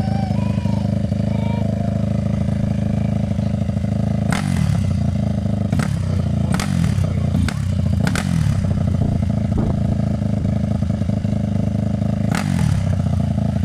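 Yamaha WR426F dirt bike's four-stroke single-cylinder engine idling, with the throttle blipped about six times, each rev falling back to idle.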